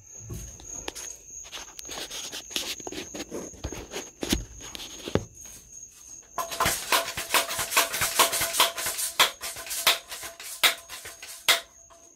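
Rustling and rattling of things being handled and moved, with a dense, louder stretch of rattling clicks starting about halfway through. A steady high cricket chirr runs underneath in the first half.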